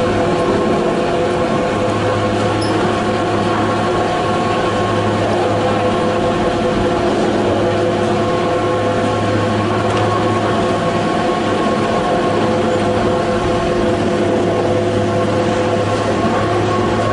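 Terminal machinery of the Rocky Mountain SuperChair, a detachable quad chairlift, running as chairs pass through and around the wheel: a steady mechanical hum with several steady whining tones over it.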